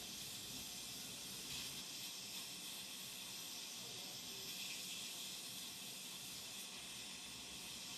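Steady faint hiss with no other sound: the background noise floor of the recording.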